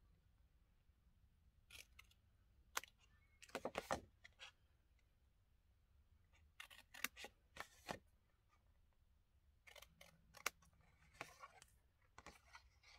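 Small paper snips cutting V-shaped notches out of the edge of a scored sheet of patterned paper: scattered short snips with quiet between them, several in quick succession about four seconds in.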